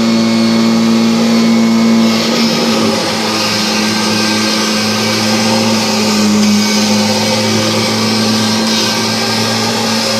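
Kirby G5 upright vacuum cleaner running steadily over the floor, a constant motor hum, picking up crumbs with little debris noise audible over the motor.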